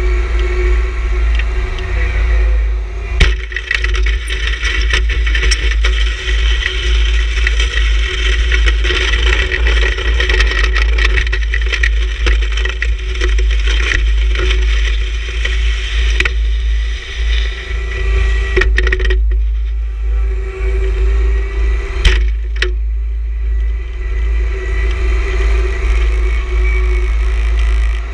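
John Deere 1026R sub-compact tractor's three-cylinder diesel running steadily with a constant whine, while its steel snow pusher scrapes and crunches through snow. A couple of sharp knocks, about three seconds in and again past twenty seconds.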